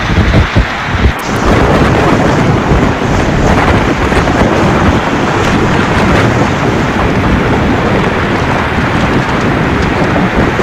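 Heavy storm rain and strong wind in a loud, steady rush, with gusts buffeting the microphone in about the first second.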